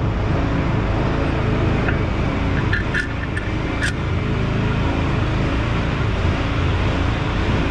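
A steady low mechanical drone, with a few light metallic clicks about three to four seconds in.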